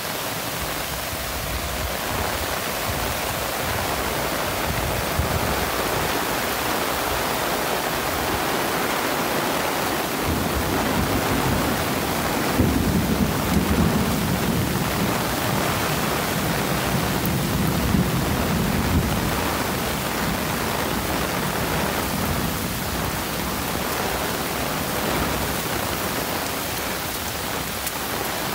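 Heavy downpour of rain making a steady hiss, with a low rumble swelling for several seconds about halfway through.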